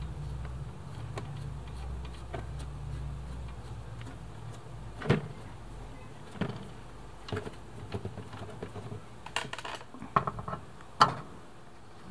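Small screwdriver working the screws of a scale RC roof rack, with scattered light clicks and knocks as the metal rack and plastic parts are handled; the sharpest knock comes near the end. A low hum fades out about halfway through.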